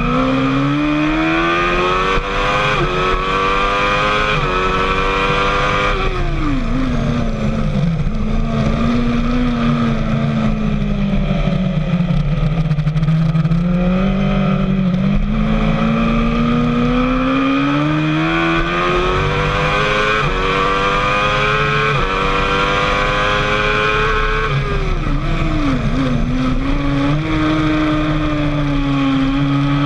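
Sport motorcycle engine heard onboard under hard acceleration, its pitch climbing in steps through quick upshifts. It falls away as the bike slows and downshifts about six seconds in and again about twenty-five seconds in, then climbs again.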